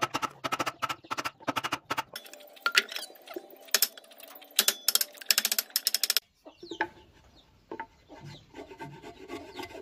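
A wide wood chisel chopping into a timber beam to clear the waste of a joint: a quick run of sharp knocks, several a second, that stops about six seconds in. Faint clucking calls follow in the quieter remainder.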